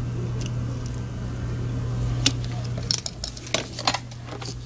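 Light clicks and taps of small plastic parts as a partly disassembled Logitech MX Anywhere 3 mouse is handled and set down: one sharp click about two seconds in, then a quick cluster of clicks a second later, over a steady low hum.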